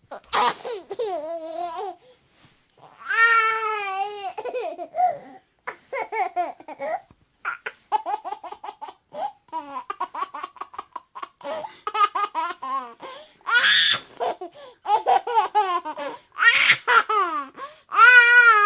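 Baby laughing in repeated fits of giggles and squeals, broken by short breathy pauses, with babbling between fits.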